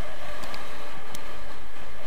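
Steady rush of wind over the microphone and skis sliding over hard-packed piste snow, with a few faint clicks.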